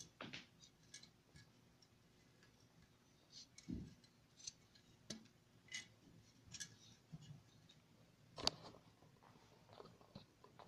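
Faint handling noise as a conch shell is turned over in the hands: scattered light clicks and knocks, with a dull thump about four seconds in and a sharper knock about eight and a half seconds in. No note is blown.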